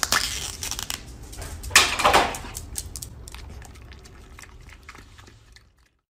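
Plastic crinkling and crackling. The loudest crinkle comes about two seconds in, followed by a run of small clicks and crackles that fade away.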